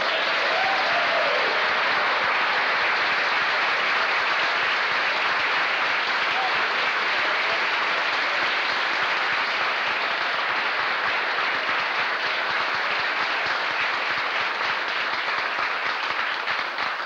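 Audience applauding, starting suddenly and holding steady for about seventeen seconds before dying away at the end.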